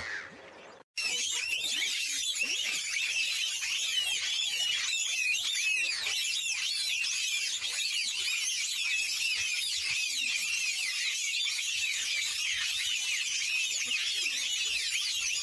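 Dense chorus of many small birds chirping and twittering at once, hundreds of high, short overlapping calls, starting suddenly about a second in.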